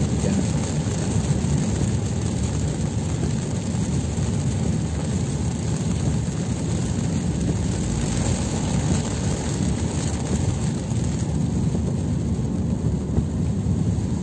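Steady rumble of a car driving in the rain, heard from inside the cabin: road and engine noise mixed with rain hitting the windscreen.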